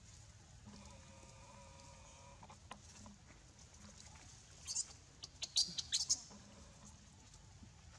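Animal calls: a faint, drawn-out layered call early on, then a quick run of short, sharp, high-pitched squeaks about five seconds in.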